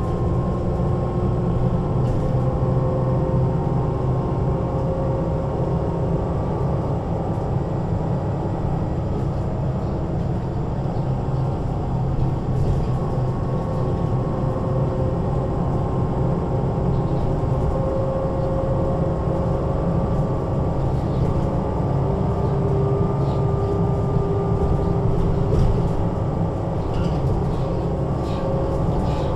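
2007 MAN Lion's City NL 283 city bus under way: a steady diesel engine drone with the whine of its ZF automatic gearbox, several thin tones drifting gently up and down with road speed.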